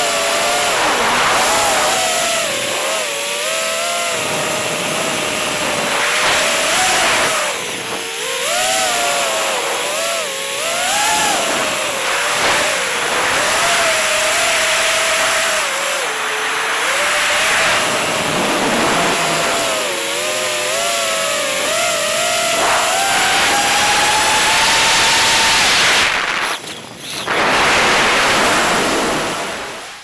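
FPV quadcopter's brushless motors and propellers whining, the pitch rising and falling with the throttle over a rush of air. The whine climbs steadily for a few seconds, cuts out briefly near the end, then picks up again and fades away.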